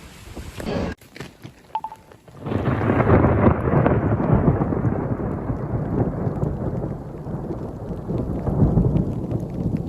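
A loud thunderclap sets in suddenly about two and a half seconds in, then rumbles on and slowly fades over several seconds. A brief high beep sounds just before it.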